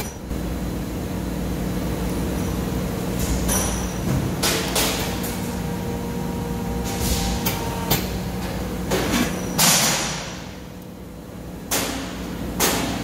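Press brake running with a steady hum while its ram bends a sheet of 1/8-inch 5052 aluminium over a 3D-printed PLA punch. Several short hissing bursts and a few clicks sound as the ram cycles, the loudest near ten seconds in.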